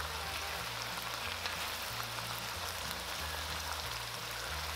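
Two eggs frying in hot oil in a wok: a steady sizzle.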